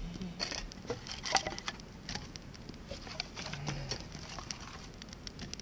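Wood campfire crackling and popping in irregular sharp snaps, one sharper snap about a second and a half in, with the knock and rustle of sticks being handled at the fire.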